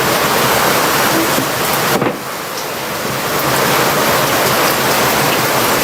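Hurricane wind and heavy rain: a loud, steady rush of noise that dips briefly about two seconds in.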